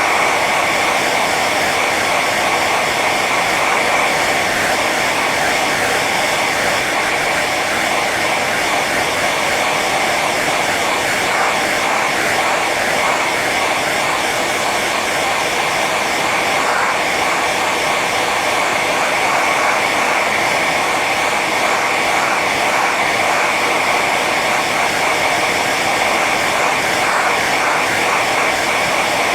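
Hair dryer running steadily on its high setting: an even rush of blown air, with a steady whine from the motor and fan.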